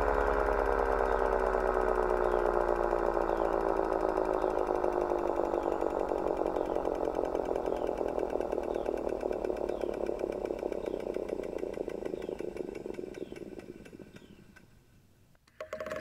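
Vintage hard disk drive spinning down: the whine of its spindle and platters falls steadily in pitch and fades away over about fifteen seconds, with faint ticks about once a second.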